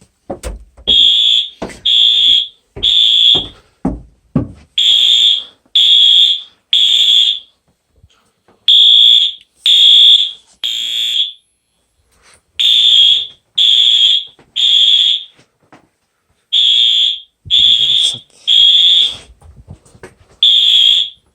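Wheelock AS fire alarm horn sounding very loud, high-pitched beeps in the temporal-three evacuation pattern: three short beeps, a pause of about a second and a half, then three more, five full rounds with a sixth just starting near the end. A few dull knocks sound during the first four seconds.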